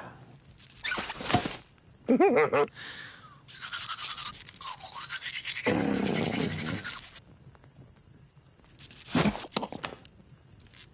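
Toothbrush scrubbing fast on teeth for about four seconds in the middle, with short hummed vocal noises around and during the brushing, in a cartoon.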